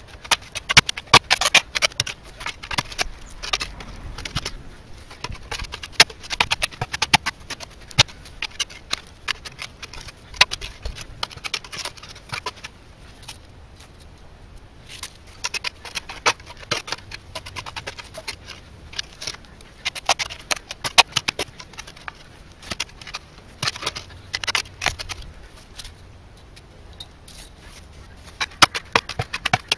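Metal digging tools working stony soil in a hole: the blade scraping and knocking against bits of rock and loose stones, in bursts of rapid sharp clicks and clinks with brief pauses.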